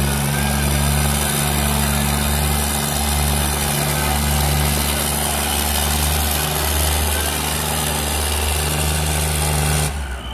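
Two diesel tractors, a John Deere 5050D and a Mahindra Arjun 555, running hard at full load as they pull against each other in a tractor tug-of-war, a steady low engine drone. The sound drops away suddenly near the end.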